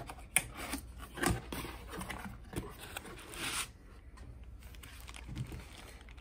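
Cardboard box being opened by hand: the tuck flap pulled free and the flaps folded back, with cardboard scraping and rubbing and a few sharp clicks, and a longer scraping rustle about three and a half seconds in.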